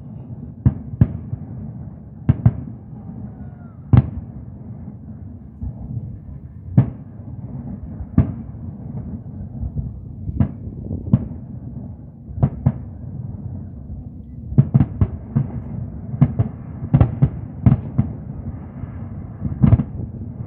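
Fireworks display: aerial shell bursts going off as dull booms at irregular intervals over a steady low rumble. The bangs come in quicker runs over the last few seconds.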